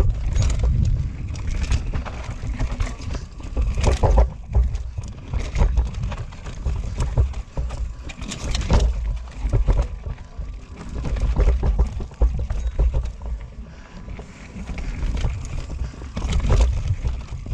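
Norco Range carbon enduro mountain bike ridden fast down a rocky dirt trail: tyres rolling over dirt and stones, with irregular knocks and rattles as the bike hits rocks, loudest about four seconds in, near nine seconds and near the end. Wind buffets the microphone as a constant low rumble.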